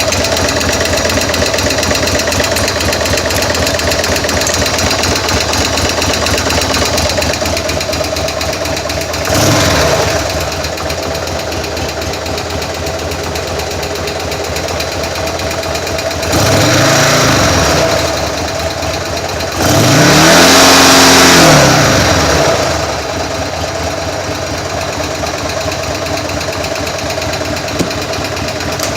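Buell M2 Cyclone's air-cooled V-twin idling with a rapid knocking clatter, blipped three times (about a third of the way in, then twice just past halfway), its pitch rising and falling back each time. The owner suspects a sticky lifter, with the oil a little low.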